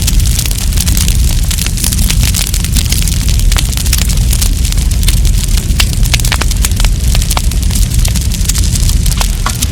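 Wood campfire burning, with frequent irregular crackles and sharp pops over a steady low rumble.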